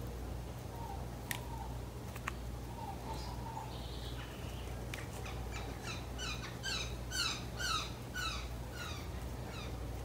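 Birds calling: a run of eight or nine quick repeated chirping notes from about halfway through, the loudest sound here, with fainter single calls earlier. Under it runs a steady low hum, and two small clicks come in the first few seconds.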